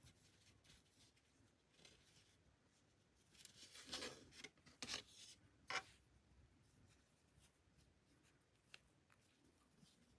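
Cotton macrame cord rustling and rubbing as hands pull it through and tighten a knot: a few short scraping rustles near the middle, otherwise faint.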